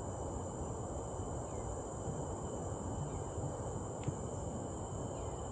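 Insects keep up a steady high-pitched drone over a steady low noise. There is one sharp click about four seconds in, and a couple of faint short falling chirps.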